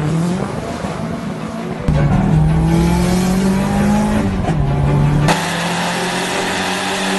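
Turbocharged Mitsubishi Eclipse's engine under throttle, its pitch climbing slowly as it revs. The sound is spliced from short clips, changing abruptly about two seconds in and again about five seconds in.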